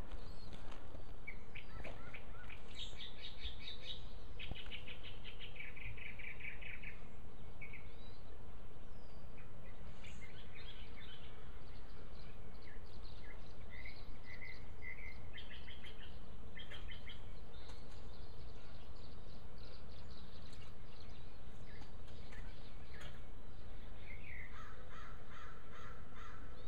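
Outdoor birds chirping and trilling on and off, several short calls and rapid chattering runs, over a steady low background noise.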